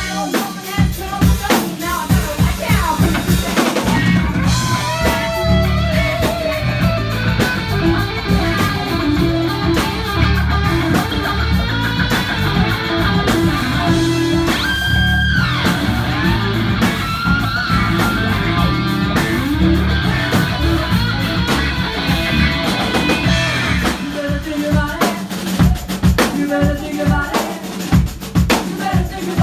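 Rock band playing live: drum kit, bass and electric guitars. Through the middle, melodic lines bend in pitch over the band with no words sung, like a lead-guitar passage.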